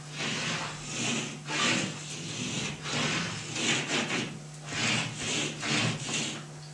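A drawing tool scraping across a painted wall in about eight quick, separate strokes, each under half a second, as lines are drawn on it. Under the strokes runs a steady low hum.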